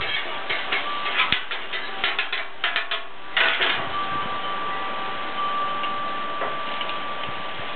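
Wind chimes ringing steadily. A quick run of sharp metal clicks and taps from utensils worked on a flat-top griddle fills the first three and a half seconds, ending in a short scraping burst.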